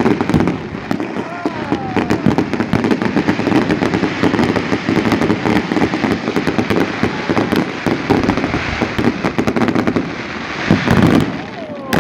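Fireworks display: a dense, continuous run of bangs and crackling from aerial shells bursting overhead, easing briefly near the end.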